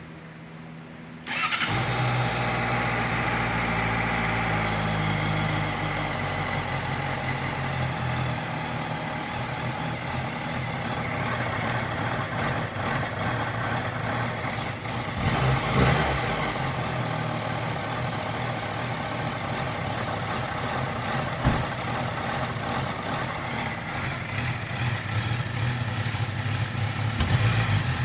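2018 Honda CBR650F's inline-four engine starting from cold about a second in, then idling roughly. The idle speed drops after a few seconds, and the engine note rises briefly around the middle and again near the end.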